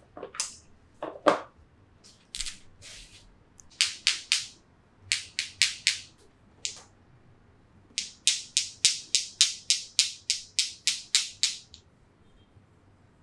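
Massage hand percussion: quick, rhythmic strikes of hands on the body. They come in scattered groups at first, then turn into a steady run of about four strikes a second that stops near the end.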